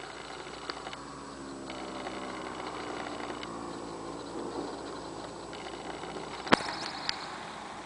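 Sig Kadet LT-40 radio-controlled model airplane running at low throttle as it rolls along the runway, its steady drone drifting slightly in pitch. A single sharp click about six and a half seconds in.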